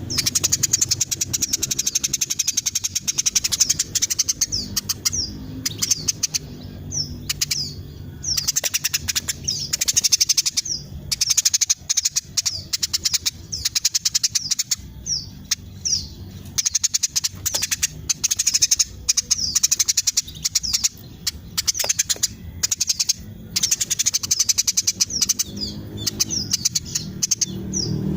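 Female Eurasian tree sparrow chirping in rapid, tightly packed runs of high notes, with quick downward-sliding notes mixed in and brief pauses between runs.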